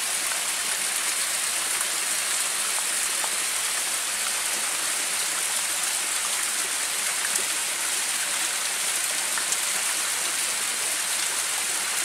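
A small hillside stream trickling and splashing over rocks: a steady, even rush of running water.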